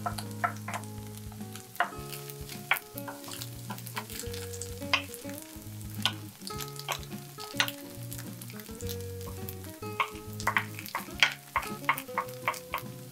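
Eggs and instant noodles sizzling in a stone-coated nonstick frying pan while a wooden spatula stirs and scrapes them, with frequent sharp clicks of the spatula against the pan, coming faster near the end.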